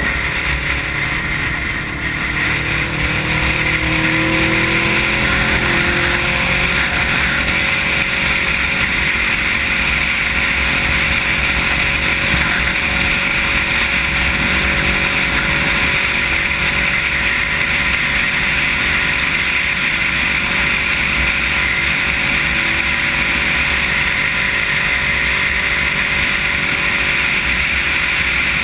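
500cc motorcycle engine rising in pitch over the first few seconds as the bike speeds up, then running steadily at highway speed, with wind and road noise. The sound is muffled and hissy, picked up through a sealed waterproof camera housing.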